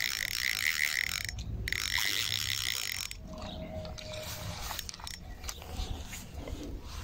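Spinning reel whirring in a fast pulsing run for about three seconds while a hooked carp is played on a light rod, then a few light clicks.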